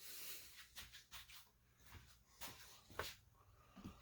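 Near silence, with a few faint scattered clicks and rustles of handling.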